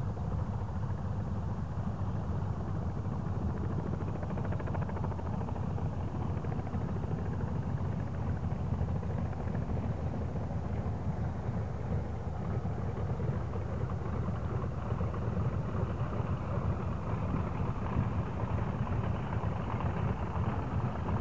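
Cessna 172 light aircraft's piston engine and propeller running with a steady drone, growing a little brighter and louder toward the end.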